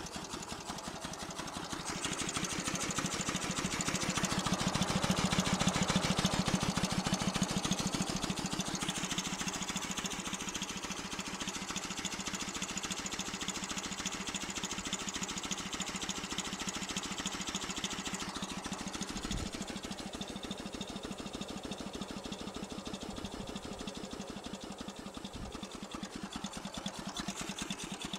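Briggs and Stratton 12 hp engine converted to run on steam, running with a rapid, even chuffing of its exhaust. It picks up and gets louder about two seconds in, then settles to a steady run.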